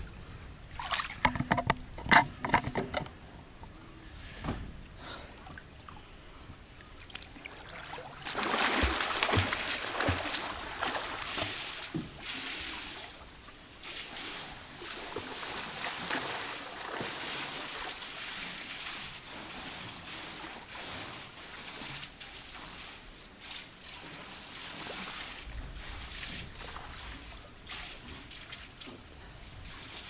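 Swimming-pool water splashing and lapping against the stone edge. There are a few sharp knocks in the first three seconds, a louder spell of splashing from about eight seconds in, and then steady sloshing.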